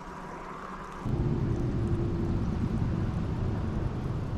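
Wind buffeting the microphone: a low, gusty rumble that starts abruptly about a second in, over a faint hiss of rushing river water.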